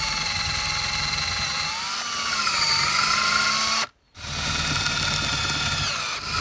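Electric drill boring clearance holes through aluminum flat stock. The motor's whine sags in pitch under load partway through, cuts off near four seconds in, and starts again a moment later.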